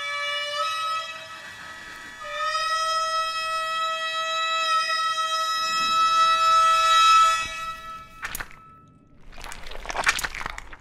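A horn sounding long held notes, a short one and then one lasting about five seconds, each with a slight shift in pitch. Then a sharp click and a brief noisy rush near the end.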